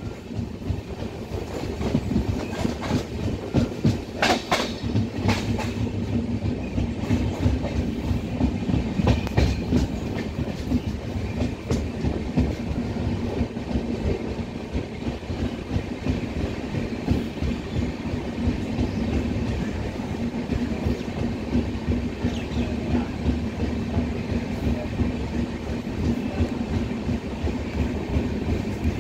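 Passenger train running, heard from the open doorway of a moving coach: a steady rumble with the wheels clickety-clacking over rail joints. There are sharper clacks about four to five seconds in and again around nine seconds.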